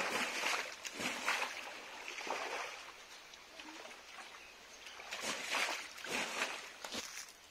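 Water splashing in a run of irregular surges, with a quieter lull in the middle before two more splashes.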